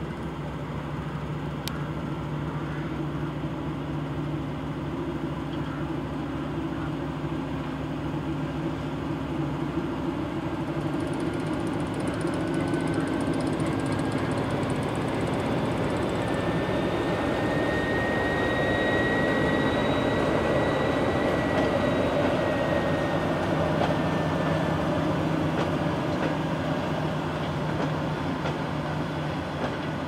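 SM42 diesel shunting locomotive's a8C22 eight-cylinder engine running as it pulls tank wagons past, growing louder as it draws closest and easing off near the end. A thin high whine rises and falls through the middle of the pass.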